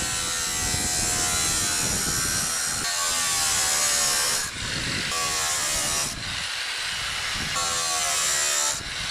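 A high-speed power tool cutting rusted sheet metal out of a combine panel, its whine dipping in pitch as it bites. It runs in four stretches with brief breaks between them and stops shortly before the end.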